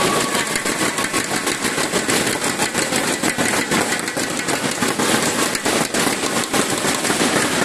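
Spectators in a hall applauding after a rally, a dense clatter of many clapping hands.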